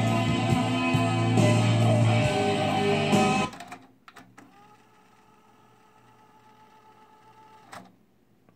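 JVC KD-VR5 cassette deck playing guitar rock music from a tape. About three and a half seconds in, the music cuts off with the clicks of the transport buttons, then a faint steady whir of the tape winding back, ending in a click near the end.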